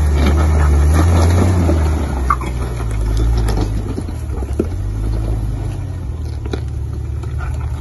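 Lifted Jeep Wrangler's engine running at low revs as it crawls up a rocky trail, louder over the first two seconds and then easing off. A few sharp knocks, typical of tyres and underbody meeting rock.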